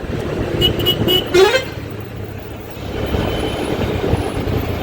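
A vehicle horn tooting three quick times, followed by a short rising note, over steady engine and road noise in slow traffic.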